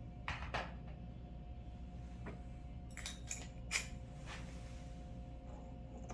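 A handful of light, sharp metal clinks and taps as small aluminum bracket parts and screws are handled and fitted, over a faint steady low hum.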